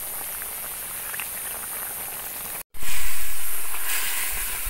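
Wok of fish in broth simmering over a wood fire, a steady hiss. It breaks off for an instant a little past halfway, then comes back louder and slowly fades.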